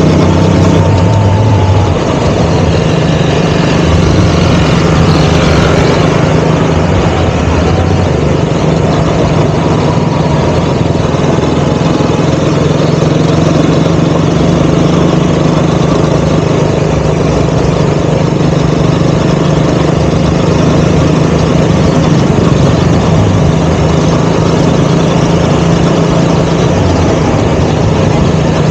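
KTM Duke 200's single-cylinder engine running at a fairly steady pace, its note stepping up about two seconds in and then holding even.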